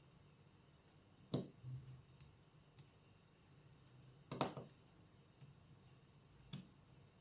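A few scattered small clicks and taps against a quiet room: a diamond painting drill pen pressing resin drills onto the sticky canvas. The two clearest come about a second and a half and four and a half seconds in.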